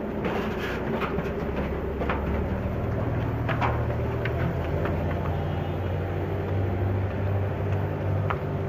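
An abra water taxi's engine running steadily, a low hum that grows stronger about two and a half seconds in, with a few short sharp knocks.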